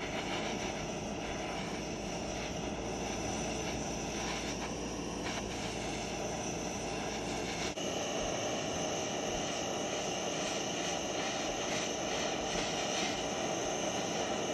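Small blowtorch flame burning steadily as it heats a metal spoon and a piece of stainless steel mesh. About eight seconds in there is a brief break, and after it the sound has a little less low rumble.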